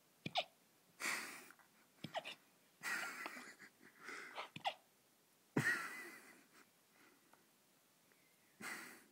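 A 12-week-old Weimaraner puppy hiccupping: about four short, sharp hiccups, each a click with a quick falling squeak, with noisy breaths between them.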